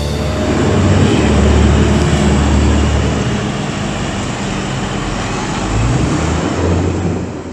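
New Holland T7.245 tractor's six-cylinder engine running steadily while its Zaccaria four-axle dumper trailer is raised, tipping out chopped corn silage. The engine sound fades near the end.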